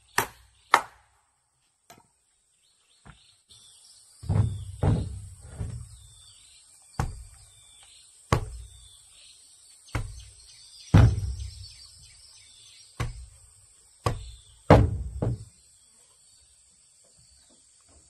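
A claw hammer knocks twice on a wooden step block being nailed to a plank ladder. After a short silence, a wooden plank ladder being handled and set in place gives about a dozen heavy, irregular wooden thuds.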